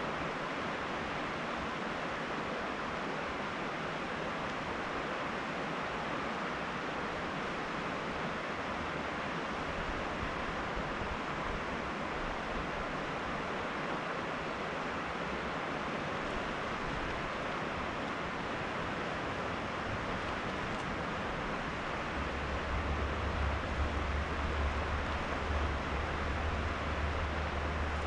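Steady rushing of river water, an even hiss with no breaks. About three quarters of the way through, a low rumble joins in and the overall level rises a little.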